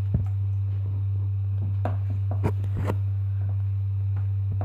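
A steady low hum, with a few soft scrapes and taps from a wet hand smoothing over risen bread dough in metal loaf tins.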